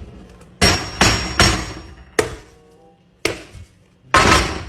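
A burnt, rock-hard homemade pizza being knocked against a hard surface: about six heavy knocks spread over four seconds, with light background music.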